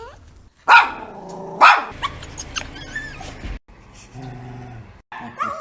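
Pet dog vocalizing: two loud barks about a second apart, followed by quieter, drawn-out vocal noises with shifting pitch and a low grumble.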